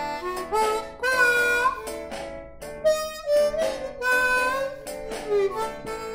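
Harmonica played blues-style, held cupped in both hands: a run of short and held notes, some of them bent and sliding in pitch.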